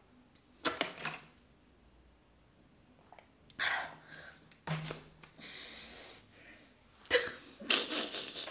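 A person's short breathy, throaty non-speech noises: a few separate bursts, the loudest coming near the end.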